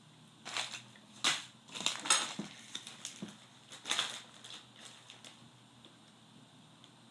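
Eating noises with a few sharp crackles and crunches, bunched in the first four seconds and loudest about two seconds in.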